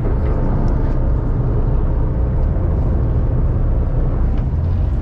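A fishing boat's engine running steadily, a continuous low rumble.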